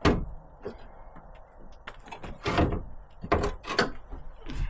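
A series of about six separate knocks and clunks from vehicle body parts being handled while the front end of a Land Rover Defender is taken apart. The loudest knock comes right at the start.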